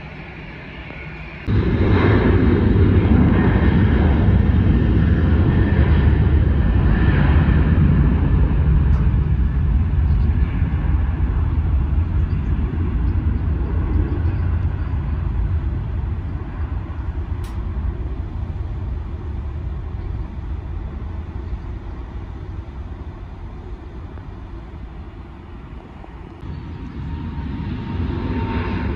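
Jet airliner's engines at takeoff power on the takeoff roll: a loud low rumble that starts abruptly about a second and a half in and slowly fades over the next twenty-odd seconds. Near the end a different, quieter engine rumble takes over.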